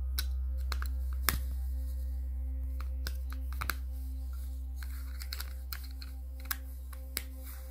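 Small plastic clicks and taps as AAA batteries are pressed into a TV remote's battery compartment and its back cover is slid shut. There are about ten sharp clicks, the loudest about a second in, over a steady low drone.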